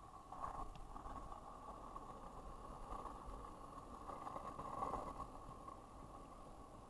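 Skateboard wheels rolling over rough asphalt: a steady rolling rumble, swelling louder about half a second in and again around five seconds.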